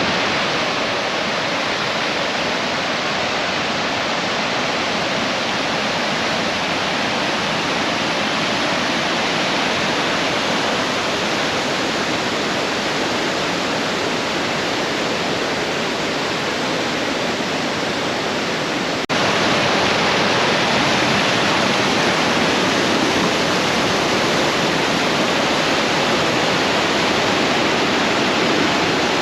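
Loud, steady rushing of a three-tiered waterfall, heavy water falling without a break; it steps up a little louder about two-thirds of the way through.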